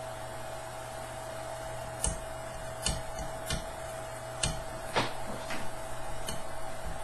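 Fingers picking the failed ABS print lines off the tape on a 3D printer's heated bed, giving about seven short sharp clicks and crackles from about two seconds in. Under them runs the steady hum of the stopped Prusa i3 printer, a constant tone from its fan.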